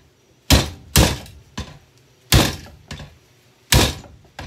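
Heavy blows smashing a Bissell hand-held vacuum cleaner apart: a quick pair of loud strikes, then two more spaced over a second apart, with lighter knocks between.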